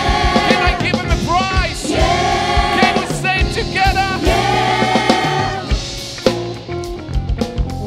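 Gospel choir singing an upbeat song over a live band with drum kit. The voices stop about six seconds in and the band plays on alone.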